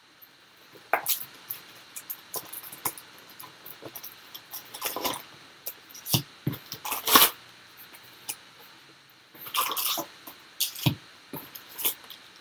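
Cardboard box of trading-card packs being opened and emptied by hand: irregular rustling, crinkling and clicks of cardboard and pack wrappers, with a few louder crinkling bursts near the middle and towards the end.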